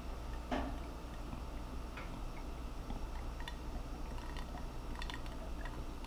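Faint scattered light taps and clicks of kitchen handling, one a little stronger about half a second in, over a steady low hum.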